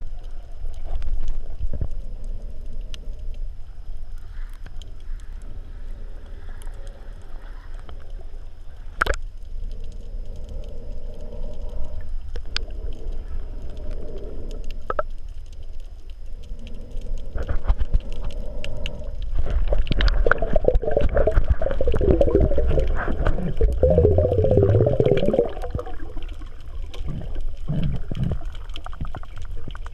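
Underwater ambience recorded by a camera swimming below the surface: a steady low rumble of moving water with scattered sharp clicks. About two-thirds of the way through, the water noise grows louder and busier for several seconds.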